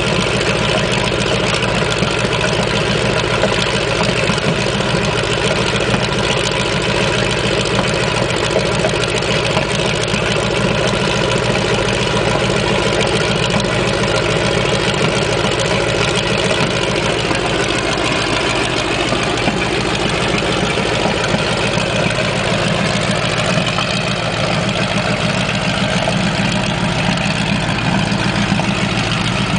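Sherman M4A1 tank's Continental R-975-C4 nine-cylinder air-cooled radial engine running steadily at a constant speed, with no revving.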